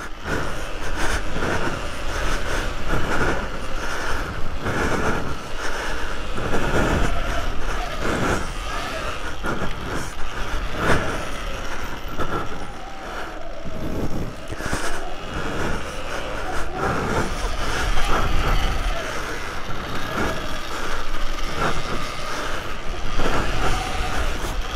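Electric off-road motorbike ridden over a bumpy dirt track: a steady running whine with a motor tone that rises and falls with the throttle, and frequent knocks and rattles as the bike hits the bumps.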